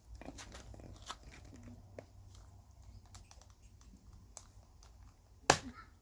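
Plastic parts of a Gardena garden-hose spray nozzle clicking and tapping as it is handled and taken apart, with one sharp, much louder click near the end.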